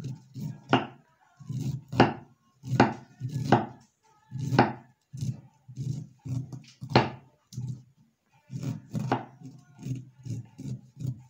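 Kitchen knife cutting kernels off fresh corn cobs held upright on a wooden board, in quick repeated downward strokes. Each stroke is a short scrape ending in a knock on the wood, about one a second.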